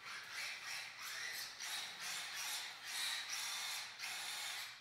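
Brushed electric motor and drivetrain of a Losi Mini-T 2.0 1/18-scale RC stadium truck whining as it drives around, swelling and fading with the throttle. The motor has just been broken in.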